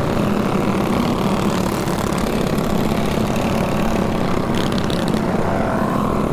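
Mini bike engines running steadily on a group ride, a continuous low engine drone with no change in pitch.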